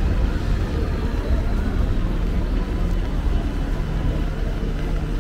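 Steady low rumble of vehicle traffic on a city street, with no single event standing out.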